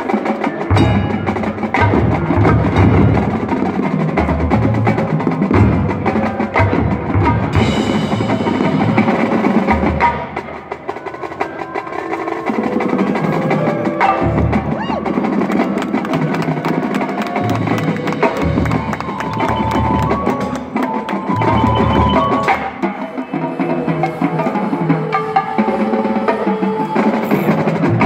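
Marching band playing its field show: winds over the drumline and the front ensemble's keyboard percussion and bass drum. About ten seconds in the full sound drops back to a thinner passage of separate mallet-percussion notes and drum hits, then builds again.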